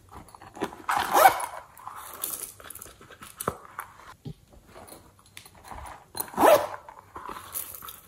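Rubber squeeze toy squeezed by hand, letting out two short, squeaky, bark-like squeals that bend in pitch, one about a second in and one past the middle, with handling rustle and light taps between.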